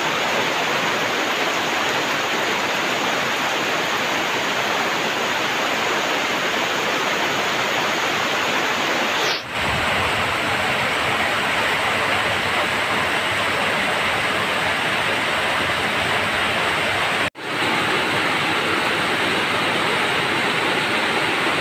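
Heavy tropical rain pouring down in a steady hiss, briefly cut off twice.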